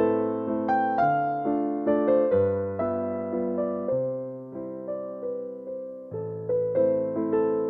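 Background music played on a keyboard: slow chords under a simple melody, each note struck and then fading.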